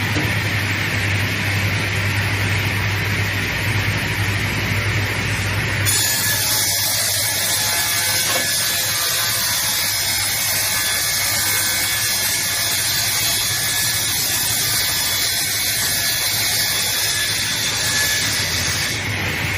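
Multi-blade rip saw running and sawing lumber: a steady, loud machine noise with a low hum. About six seconds in the sound changes abruptly to a higher-pitched whine with several steady high tones.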